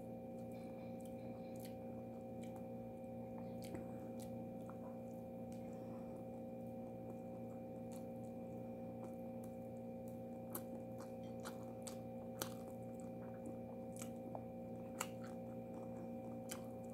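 Quiet chewing with scattered small mouth clicks as someone eats with their fingers, over a steady hum.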